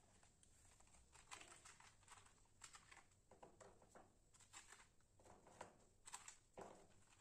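Faint clicks and crinkles of a clear plastic biscuit tray being handled, with biscuits pulled out and set down on the steel plate.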